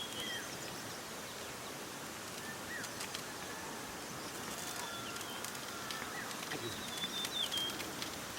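Small birds chirping and calling, short high whistled notes and slides, over a steady outdoor hiss with a few faint clicks.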